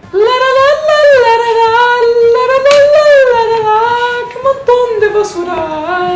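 A single high voice singing a simple tune, 'la la la, la la la', then a line that means 'what mountains of trash there are', without accompaniment.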